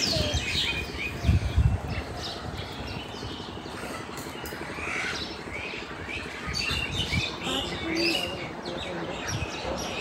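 Many small birds chirping and calling without a break, with a few low thumps about a second and a half in.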